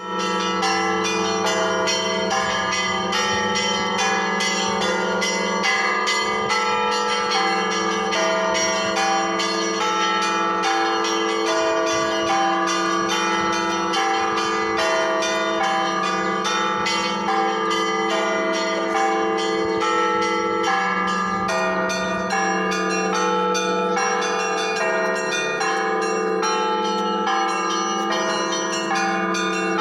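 Russian Orthodox church bells ringing the festive Easter peal: small bells struck in quick succession over the steady ring of the larger bells.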